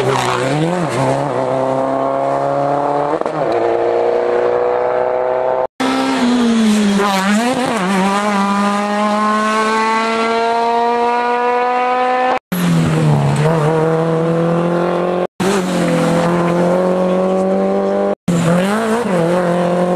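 Rally car engines at full throttle, pitch climbing through each gear with brief dips at the shifts and a quick drop and rise when a car slows for the corner. Several short clips, the sound cutting off suddenly four times between them.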